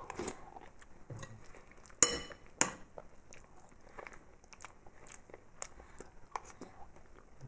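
Eating sounds: a metal spoon clinks twice against a ceramic bowl about two seconds in, half a second apart, amid soft chewing and mouth clicks from eating soup-soaked bread.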